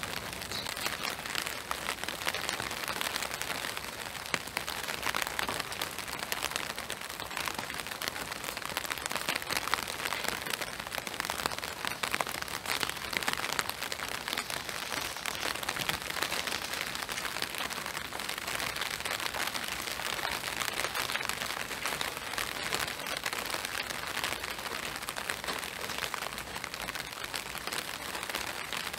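Steady spring rain falling: an even hiss made up of many small, closely spaced drop hits.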